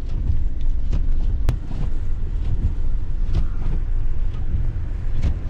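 Van driving slowly on a snow-covered road, heard from inside the cab: a steady low rumble of engine and tyres with scattered small knocks and clicks.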